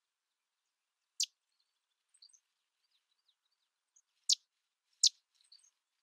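Sedge wren calling: three loud, sharp, dry notes, the last two close together near the end, with faint short high notes between them.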